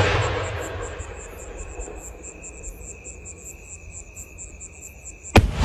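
The rumble of an 8-inch aerial display shell's mortar launch echoes and fades, over steady insect chirping with a regular high pulse. About five seconds in, a sharp loud bang as the shell bursts overhead.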